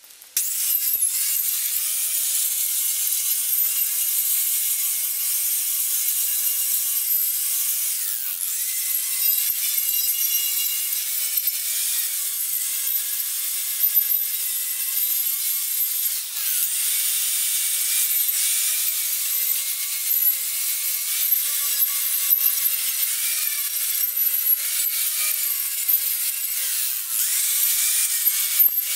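Wire wheel on a corded power tool spinning against the bare steel of a truck frame, buffing off rust and old paint. It is a continuous high whine with an abrasive scratch, and its pitch dips and recovers as the wheel is pressed into the metal and eased off.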